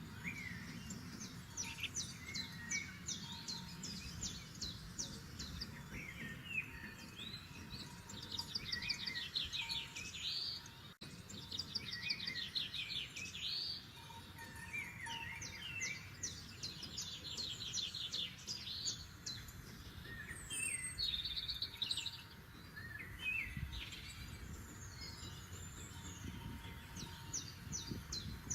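Several forest songbirds singing, with fast trills of rapidly repeated high notes and short whistled phrases every second or two, over a steady low background hiss.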